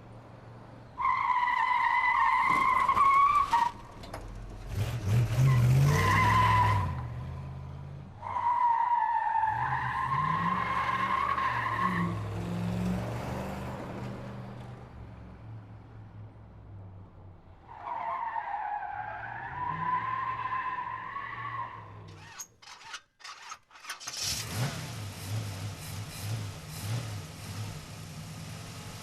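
Car engine running under four long, wavering tire squeals, then a short break with a few clicks and the engine revving near the end.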